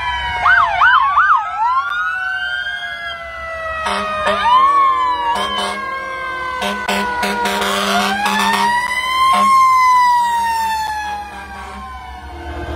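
Several emergency-vehicle sirens sounding together, overlapping wails that rise and fall, with a quick yelp near the start and a long wail peaking about three-quarters of the way through. A vehicle horn sounds in long blasts through the middle.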